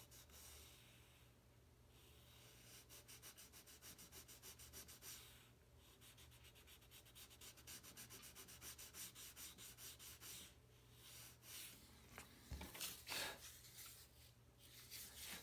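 Small folded piece of sandpaper rubbed back and forth in a saw-cut groove in a balsa wood glider wing: faint, quick, even strokes, several a second, opening the groove wider so the wing can be bent to dihedral. A few louder scrapes near the end as the wing is handled.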